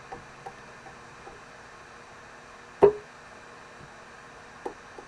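Steady faint hiss with a few small clicks, and one sharp short knock or click just under three seconds in, with a smaller one near the end.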